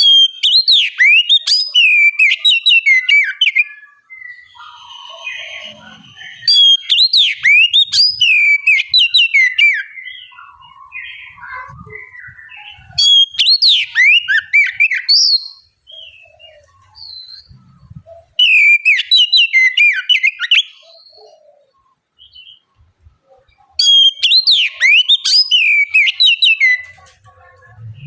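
Oriental magpie-robin (kacer) singing in full, loud bursts: about five phrases of fast, varied whistled notes sweeping up and down, with quieter scattered calls between the phrases.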